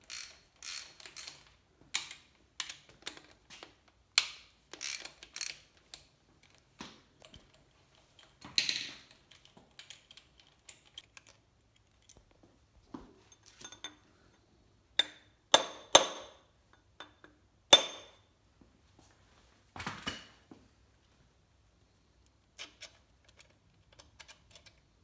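Hand tools and metal parts clicking and clinking on the bottom end of a Ford 5.0 V8 as its connecting rod caps are taken off. Scattered light clicks fill the first few seconds, and a few sharp, ringing metal clinks come a little past halfway.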